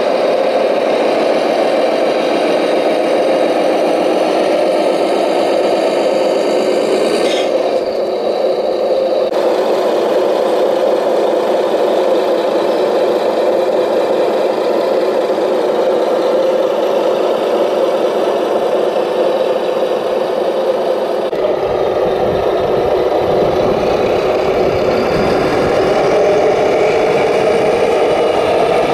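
Radio-controlled model heavy trucks and wheel loader running, with a steady diesel-like engine sound and rattling. The sound shifts abruptly twice and turns deeper, with more rumble, about two-thirds of the way in.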